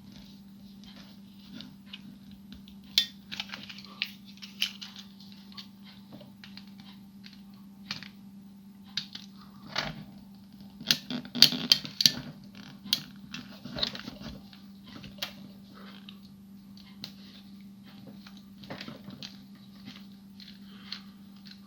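Small clicks, taps and scrapes of hard plastic toy parts and a screwdriver as screws are undone and a section of a G1 Transformers Hose Head figure is worked loose. The clicks are most frequent about halfway through, over a steady low hum.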